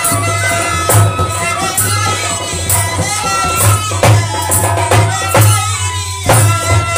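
Himachali nati folk music played live: a harmonium holding steady chords and a dholak beating a steady rhythm, with a woman singing over them.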